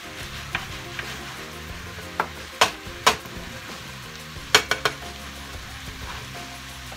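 Ground meat sizzling as it fries in a nonstick skillet, stirred and broken up with a slotted spatula. The spatula knocks and scrapes sharply against the pan several times: twice a little under halfway through and in a quick cluster of three a little past the middle.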